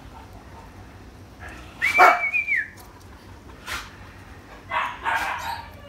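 Newborn puppy crying while being handled: one high, thin, wavering whine about two seconds in that drops in pitch at its end, then shorter, rougher cries near the end.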